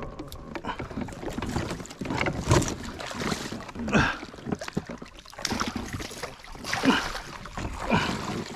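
Irregular water and handling noises aboard a small fishing boat, with some wind on the microphone.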